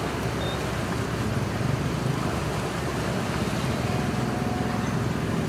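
Steady low drone of a ship's or boat's engine running, over a haze of background noise.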